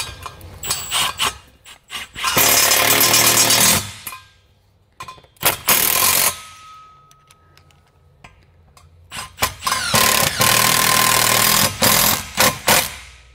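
A handheld power tool runs twice: about a second and a half, then about three seconds a few seconds later. Short clicks and knocks come between the two runs.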